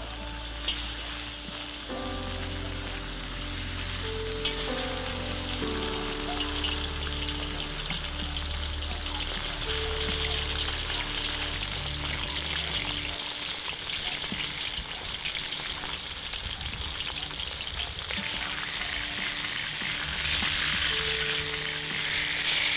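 Beef shanks searing in hot oil in a cast-iron wok: a steady sizzle that grows louder near the end as the pieces are turned with a metal skimmer. Soft background music with held low notes plays underneath.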